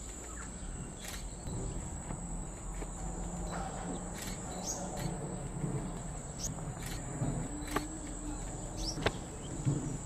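Insects, crickets or cicadas, droning steadily at a high pitch. Short sharp bird chirps sound every second or so, over a low background rumble.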